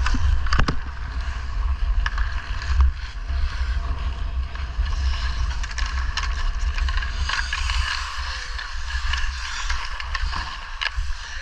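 Ice skates scraping and gliding on an outdoor rink, with a steady low wind rumble on the microphone. Several sharp clacks of stick on puck come through, the strongest in the first second.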